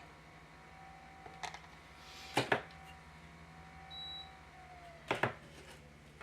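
Sharp small clicks and taps of tools and laptop parts being handled on a workbench, several in quick pairs, over a steady electrical hum, with a short high beep about four seconds in.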